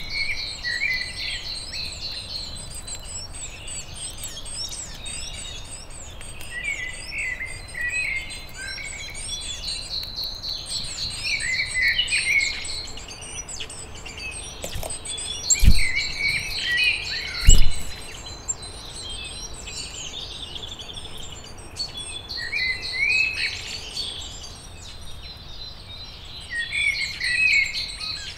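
Songbirds singing, several overlapping with chirping phrases and rapid high trills coming back every few seconds. Past the middle, two loud sharp knocks about two seconds apart.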